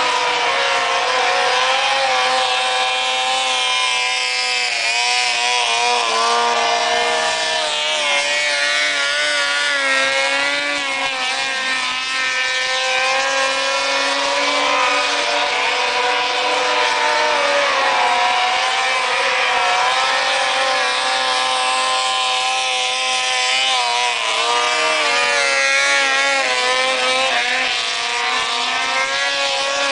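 Snowmobile engines running at high revs as the sleds skim across open water, their pitch rising and falling as the riders work the throttle and several engines overlap.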